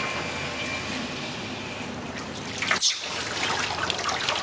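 Water trickling and dripping into a large aluminium basin while a baby macaque is washed, turning to busier splashing in the second half as water is poured over the monkey into the basin. A brief sharp sound comes just before three seconds in.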